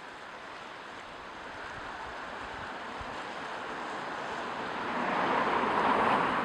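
Ocean waves washing in, a steady rush that swells louder as a wave surges in near the end.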